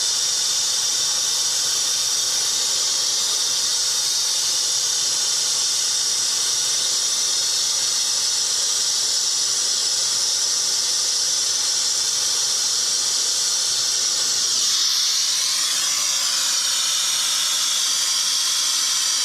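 Brazing torch hissing steadily on copper refrigerant lines while nitrogen is purged through them; about fifteen seconds in the hiss changes, with a sweeping whistle-like tone before it settles again.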